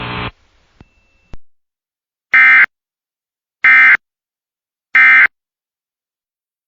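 Emergency Alert System end-of-message code: three short, loud bursts of the harsh, buzzing digital data tone, about 1.3 seconds apart, signalling that the alert broadcast is over.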